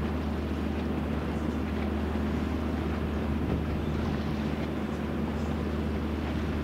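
A ship's diesel engine running with a steady low drone over an even hiss.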